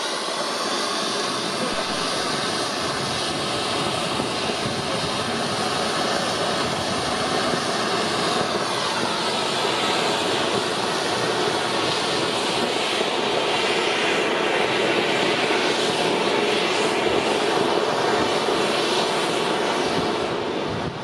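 Firework fountains (ground volcanoes) spraying sparks with a steady rushing hiss, getting slightly louder as a second fountain joins.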